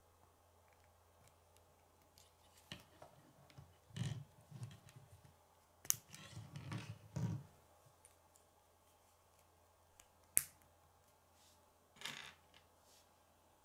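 Plastic K'nex rods and connectors clicking and rattling as they are handled and pressed together, in scattered faint clicks and short clusters, the sharpest single click about ten seconds in.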